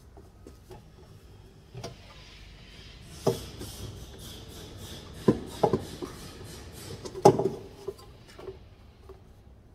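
Hand-handling knocks and clunks as parts and piping are worked into place in an engine bay: about five sharp knocks, the loudest about seven seconds in, with rubbing and rustling between.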